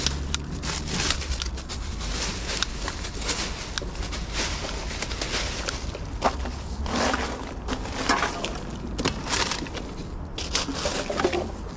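Irregular rustling and crackling of twigs, dry leaves and plastic litter being pushed through and grabbed by hand and litter picker in a bush, with many small sharp snaps and crinkles.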